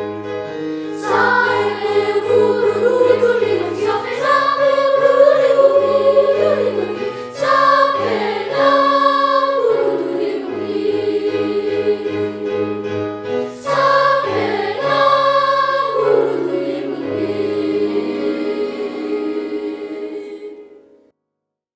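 Elementary school children's choir singing in parts over sustained low accompaniment notes, fading out to silence near the end.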